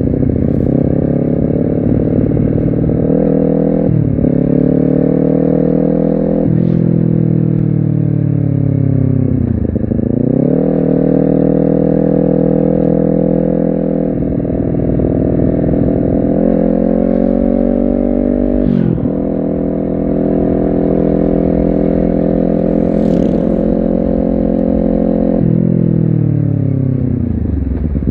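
Honda CBR250RR parallel-twin engine under way: the note climbs and steps down through several gear changes. Twice, near the tenth second and at the end, the revs fall away deeply and then pick up again.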